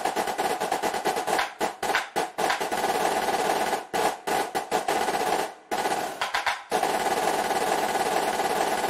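Score playback of a drum corps battery (marching snares, tenors and bass drums) playing a fast percussion feature with the winds silent. It is dense rolls and rapid runs, broken by several short rests, with a lighter passage about six seconds in.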